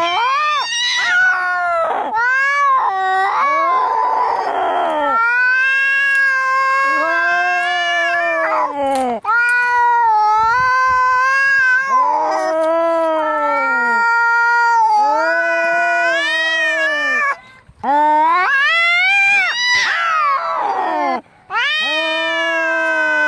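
Angry cats caterwauling in a fight: long, drawn-out yowls that rise and fall in pitch, broken by short harsh bursts about four seconds in and again near twenty seconds.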